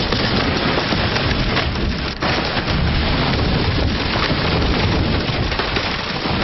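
Loud, continuous crackling noise over a low rumble, a crash sound effect. It cuts in abruptly just before and fades away in the last second.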